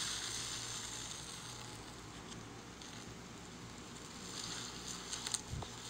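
A hand pressing and squishing into a tub of fluffy blue slime mixed with sprinkles, making a soft, even crackling and fizzing. A few small clicks near the end.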